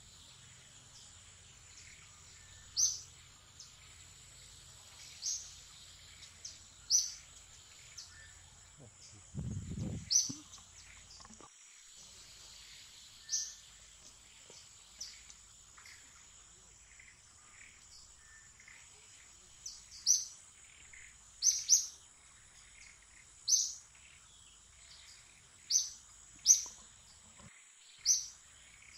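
A bird calling with short, sharp high chirps every few seconds, coming faster near the end, over a steady high-pitched insect drone. There is a brief low rumble about ten seconds in.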